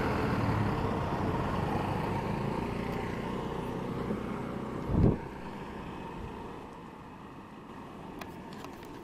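A passing engine's noise slowly fading away as it moves off, with a brief low thump about five seconds in.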